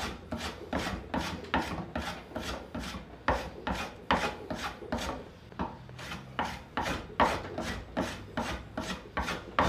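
Wooden hand plane cutting along a wooden table leg in quick, short strokes, about two or three a second, each a brief scrape as the blade takes off thin shavings to taper the leg.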